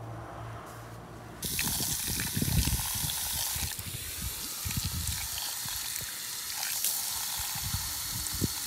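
Garden hose spray nozzle rinsing a freshly plucked chicken carcass, a steady hissing spray with irregular splattering as the jet hits the bird and the wooden pallet. The spray starts abruptly about a second and a half in.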